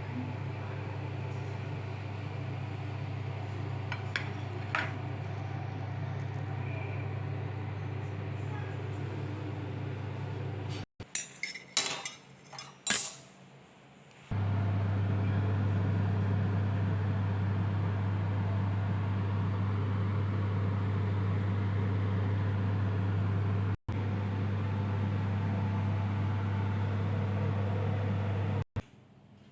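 Dishes and cutlery clinking now and then over a steady low hum; about eleven seconds in the hum stops and a quick run of louder clinks comes, then the hum returns louder.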